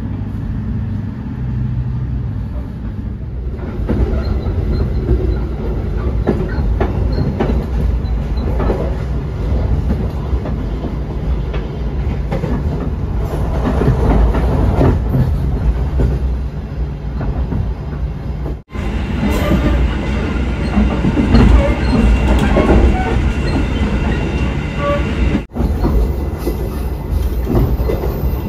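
Passenger train running along the track, heard from inside the carriage: a continuous rumble of wheels on rails. It grows louder a few seconds in as the train picks up speed, and cuts out for an instant twice in the later part.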